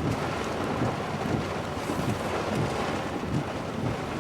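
Heavy rain pouring down on a truck, heard from inside the cab: a steady rushing hiss over a low rumble.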